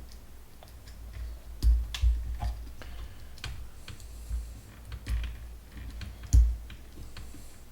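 Parts of a Dyson air-cleaning fan being handled and pulled apart by hand: irregular small clicks and knocks, with two louder knocks, one about a second and a half in and one near the end.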